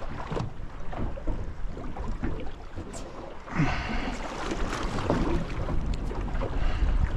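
Wind buffeting the microphone and water slapping against the hull of a small boat on choppy sea, with a low steady rumble and a few light knocks. A louder rush of noise comes about three and a half seconds in.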